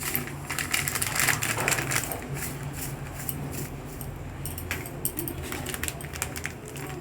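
Dry semolina being stirred and dry-roasted in a metal kadai: a spatula scraping and ticking against the pan and rattling the grains, many small irregular clicks, thickest in the first two seconds. A steady low hum runs underneath.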